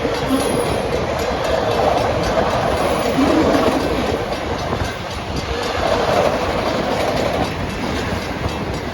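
Railroad cars rolling steadily past at close range: a continuous loud rumble with the clatter of steel wheels on the rails.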